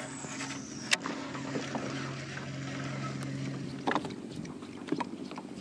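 Water lapping against a kayak hull, with a faint low hum that fades out a little past the middle. A few sharp knocks, about a second in and again near four and five seconds.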